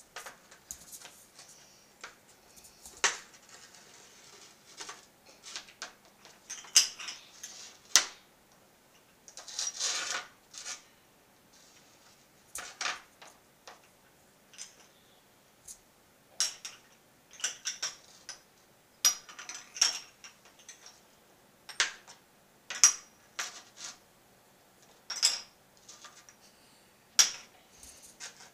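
A cat's claws scratching and tapping at a projection screen in irregular swipes, each a second or less, with sharp clicks in between.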